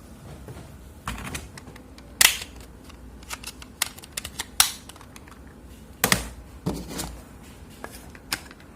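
Irregular sharp clicks and taps, about a dozen, some coming in quick clusters, over a low steady hum.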